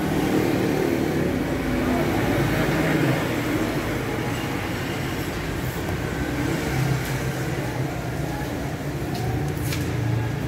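Steady low rumble of vehicle traffic, with a few faint clicks near the end.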